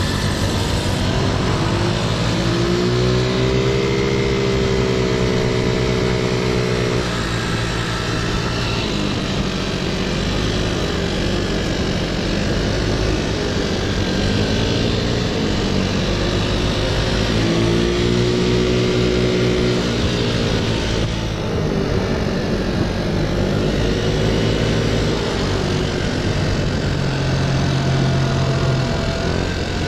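Small motor scooter's engine running under way, its pitch rising and falling several times as the rider speeds up and eases off, over a steady rush of wind and road noise.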